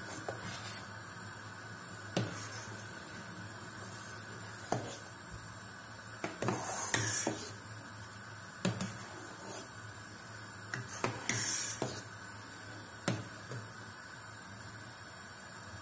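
A metal slotted spoon knocking and scraping against a stainless-steel pot while stirring curdling milk, with scattered sharp clinks and two longer scraping bursts about 7 and 11 seconds in. A steady faint hiss runs underneath.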